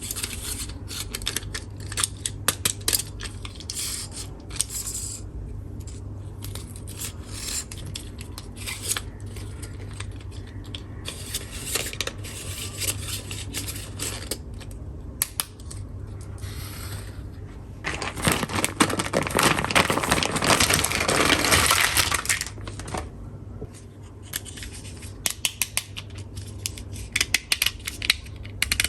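Small plastic toy tool pieces being handled: scattered sharp clicks and clacks, with a louder, continuous rattling stretch about two-thirds of the way through.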